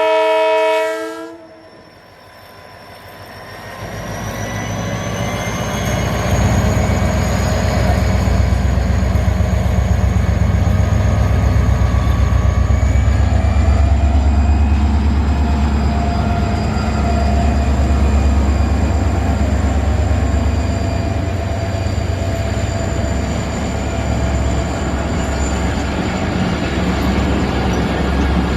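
A Pakistan Railways diesel train sounds its horn, one blast ending about a second in, then passes close by with a heavy low rumble of locomotive and wagons that builds over a few seconds and holds steady, a faint high whine riding above it.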